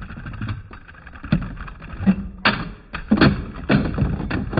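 Two Beyblade Burst tops, Wizard Fafnir and Harmony Pegasus, spinning in a plastic Hypersphere Beystadium: a steady whirring rumble with a series of sharp clacks as they collide, the hits coming closer together and louder in the second half.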